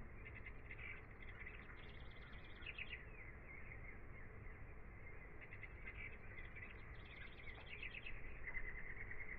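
Faint birdsong: two bursts of quick, repeated chirps, then a rapid trill near the end.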